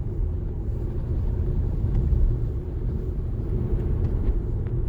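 Car driving along a country road: a steady low rumble of engine and tyre noise, heard from inside the cabin.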